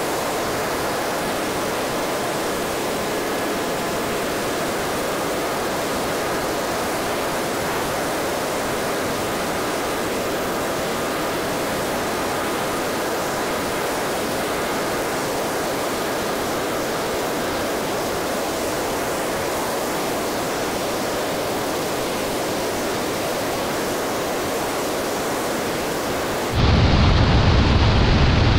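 Steady rush of airflow over a wing-mounted camera on an ultralight aircraft in flight, with the engine only faintly heard under the wind. Near the end the sound switches abruptly to a louder, deeper rumble.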